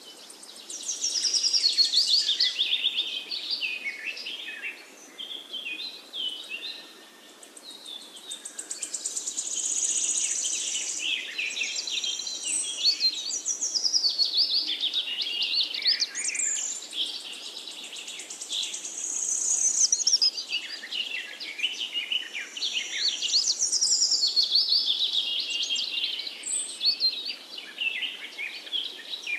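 Several birds singing at once in a dense forest chorus of overlapping chirps, trills and whistled phrases, over a faint steady background hiss.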